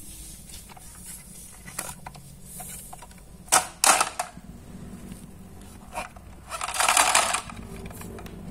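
Sharp clicks and clacks of a plastic shark toy with marbles inside being handled, two loud clacks close together about three and a half seconds in, and a brief rattling shuffle near the end over a faint low hum.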